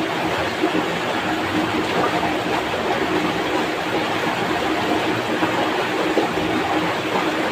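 Swift, muddy stream rushing over rocks and a small rapid: a steady, even rush of water.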